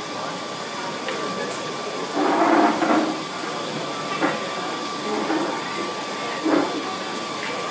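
Steady hissing background noise of a shop, with a faint steady tone. A short stretch of indistinct voices comes about two to three seconds in, and brief sounds follow later.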